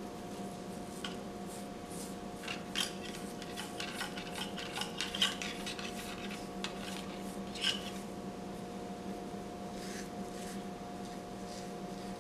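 Fingers teasing out and fluffing the synthetic fibres of a twisted-wire dubbing brush: scattered scratchy rustles and small clicks, busiest in the middle, over a steady low hum.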